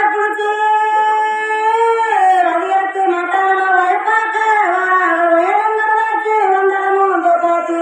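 Women's kulavai (kuravai), the Tamil festive ululation, held as one long unbroken high-pitched cry whose pitch wavers up and down in slow waves.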